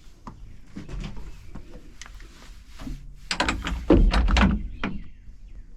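Metal clicks, clunks and rattles as the Kioti TL750's cab is unlatched and tilted up on its shocks. The loudest burst of clatter comes a little past halfway.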